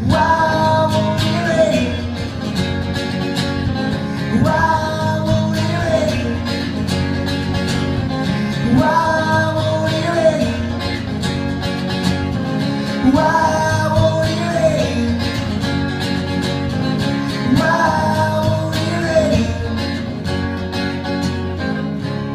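Solo acoustic guitar played live in a repeating phrase that comes round about every four seconds: the instrumental close of an acoustic song.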